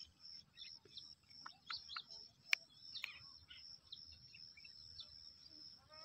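Faint scattered bird chirps over a steady high-pitched insect-like whine, with one sharp click about two and a half seconds in.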